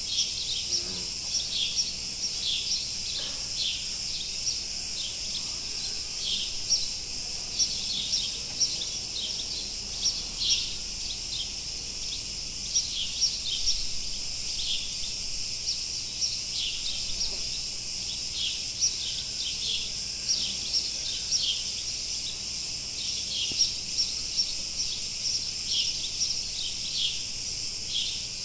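Steady high-pitched buzz of a cicada chorus, with many short bird chirps scattered throughout.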